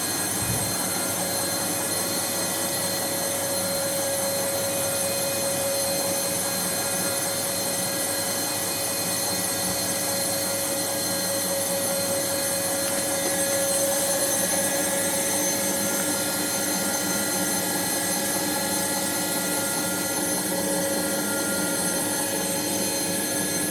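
Bosch MAXX 6 washing machine spinning at high speed: a steady motor whine with several high tones over the rush of the turning drum.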